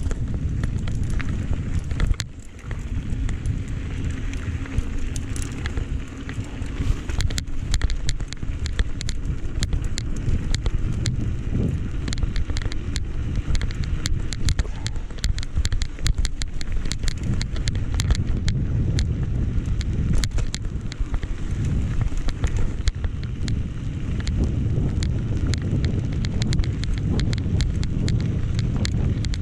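Wind buffeting the microphone as a steady low rumble, with many small sharp ticks and clicks that come thicker from several seconds in.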